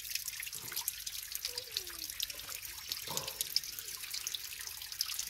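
Shallow mountain stream trickling and dripping over rocks, with small splashes.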